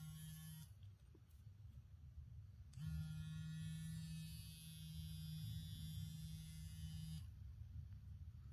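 Gillette ProGlide Power razor's battery-powered vibration motor buzzing: switched on for a moment at the start, then again about three seconds in, running steadily for about four seconds before it is switched off.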